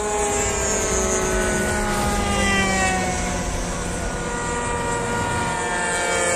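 Several radio-controlled warbird model planes flying past, their propeller motors droning together as several tones at once that slide down in pitch as the planes pass.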